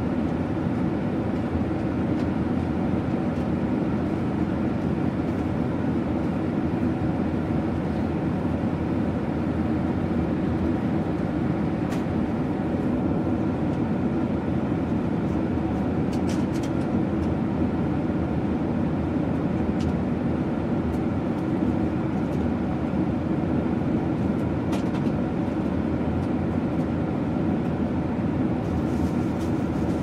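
Airliner cabin noise in cruise: a steady, deep drone of engines and rushing air, with a few faint ticks.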